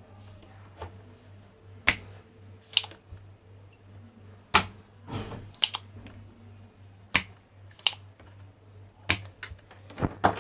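Sharp, irregular clicks and taps of tools at a battery charger's circuit board while a diode is being desoldered and pulled out, about nine in ten seconds. A steady low hum runs underneath.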